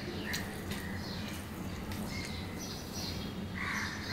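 Fingers mixing rice on a steel plate, with a few soft clicks in the first second. Near the end, a bird calls several times outside.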